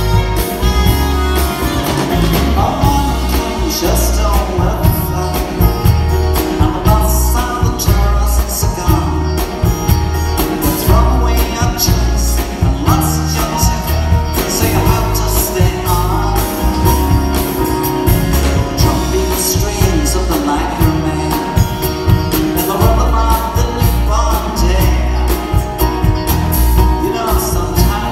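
Live rock band playing with a steady beat: drums, bass, electric and acoustic guitars, keyboards and saxophone. A bending melodic line runs over the band.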